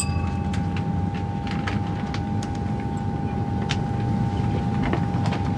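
Steady low drone of an airliner cabin in flight, with a steady humming tone above it. The ring of a champagne-glass clink fades in the first moment.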